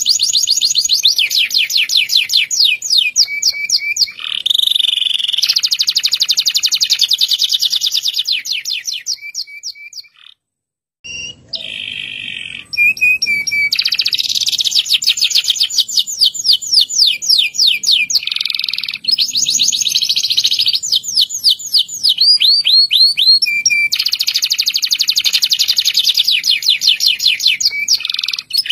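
Local domestic canary (kenari lokal) singing a long, fast rolling song of rapid trilled notes, one run after another, with a short break a little after ten seconds in.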